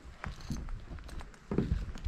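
Footsteps on a wet wooden boardwalk: a person in rubber boots and a dog walking, heard as irregular low thuds and knocks on the boards.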